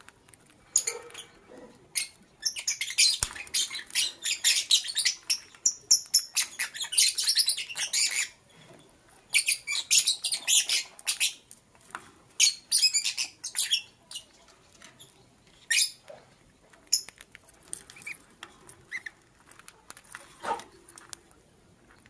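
Lovebirds chattering in rapid, high-pitched bursts of chirps, in several spells with short pauses between them and scattered single chirps toward the end.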